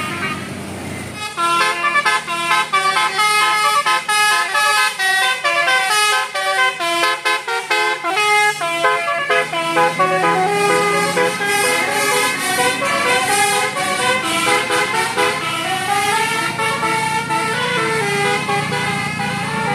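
Bus 'telolet' Basuri multi-tone horn playing a fast melody of short stepped notes, starting about a second in and running on, with a few sliding notes near the end.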